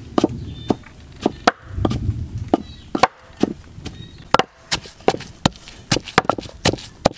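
Kitchen chopping and pounding: a cleaver chopping on a wooden board and a wooden pestle pounding chilies in a mortar, giving irregular sharp knocks that come faster in the second half.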